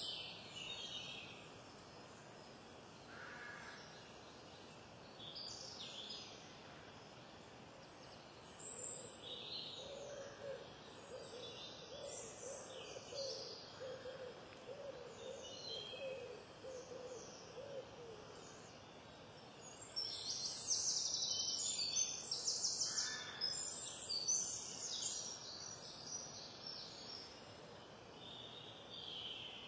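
Scissors snipping and crunching through river prawn shells, in short crackly cuts that are loudest and thickest about two-thirds of the way in. In the middle a bird hoots a long run of quick low notes.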